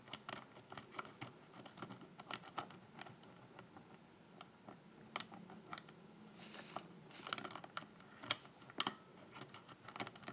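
Irregular small metallic clicks and taps of a hook pick working the security pins of a six-pin pin-tumbler lock under tension, with a short scrape about seven seconds in.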